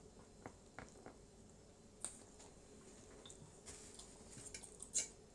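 Faint eating sounds: soft chewing and squishing with scattered light clicks of a fork, one sharper click near the end.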